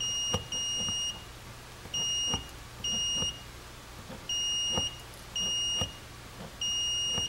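Digital multimeter's continuity beeper sounding about seven times, each a steady high beep of about half a second, with faint clicks as the probes touch the pins of a 4WD transfer-case switch. The beeps show continuity: the switch, cleaned with contact cleaner, now closes, so it has not gone bad.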